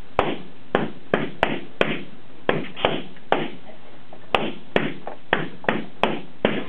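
Latex balloons being popped one after another with a pin: about fifteen sharp bangs at an uneven pace, two or three a second.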